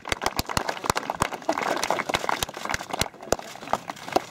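Applause from a small crowd: irregular hand claps, densest in the middle and thinning out near the end.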